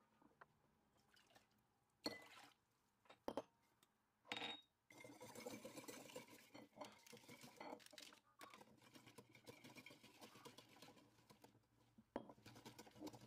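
Faint kitchen sounds: a few light clinks of glass and a short pour of liquid into a glass mixing bowl, then a wire whisk stirring and splashing against the glass for several seconds while yeast and flour are mixed into the water for bread dough.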